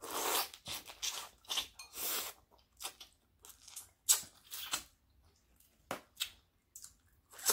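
Close-miked eating of a seafood boil: irregular crunching and tearing with chewing, densest in the first couple of seconds, then single sharp crunches.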